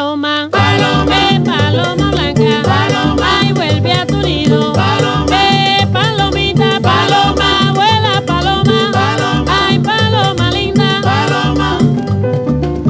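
Salsa music with a steady bass pulse and a melody line that may be sung or played on brass; there is a brief break just after the start.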